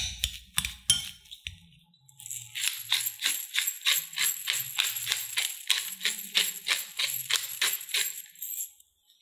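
A wire potato masher pressing boiled potato against a glass bowl, a few strokes at the start. After a short pause comes a long run of pepper being ground over the mash: an even rasping crunch about three to four times a second that stops near the end.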